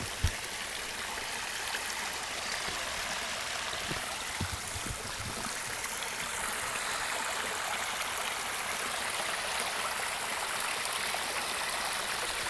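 Small backyard pond waterfall splashing steadily over stacked stone slabs into the pond, picked up by a laptop microphone. One brief knock just after the start.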